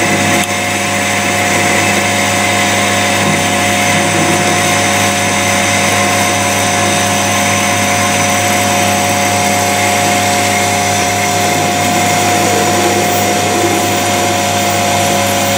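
Homemade CNC lathe roughing a taper in mild steel bar under flood coolant: a steady machine hum with constant whining tones over the hiss of cutting and running coolant.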